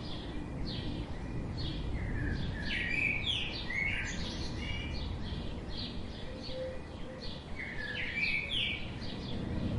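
Wild songbirds chirping in quick bursts of short, sweeping notes, over a steady low background rumble.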